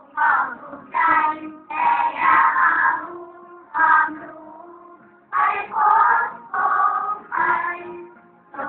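A group of children singing together in sung phrases with short breaths between them.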